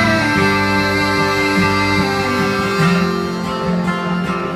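Live country music with no vocals: an acoustic guitar played through the stage sound system in an instrumental passage between sung lines, its notes held steady.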